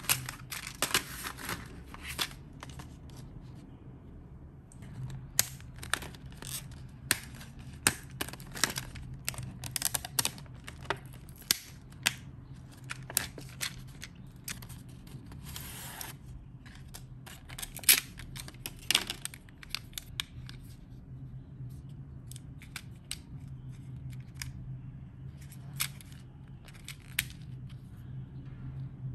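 Plastic blister packaging of mechanical lead holder pencils being handled and opened: crinkling with many sharp clicks and snaps, thinning out towards the end. A low steady hum runs underneath.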